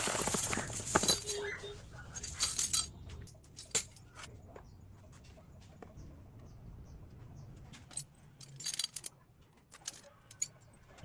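A harsh hissing noise for the first few seconds, then scattered light metallic clinks and taps, like small metal parts being handled.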